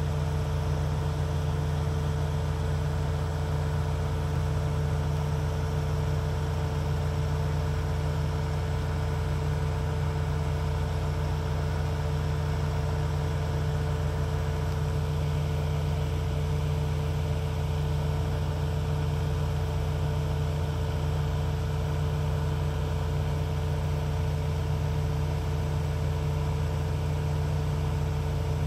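Vehicle engine idling while stationary in a traffic jam: a steady low hum with a constant tone, unchanging throughout.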